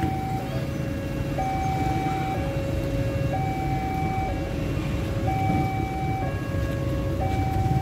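Railway level-crossing warning alarm sounding its two-tone electronic signal, a higher and a lower tone alternating about once a second, the warning that a train is approaching. Underneath is the steady rumble of road traffic.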